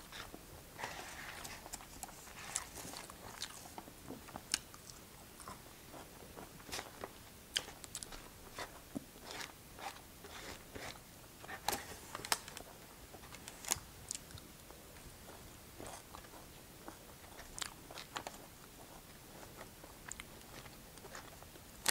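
Quiet chewing of meat, with scattered soft clicks and scrapes of a plastic fork picking food from a foam takeout container.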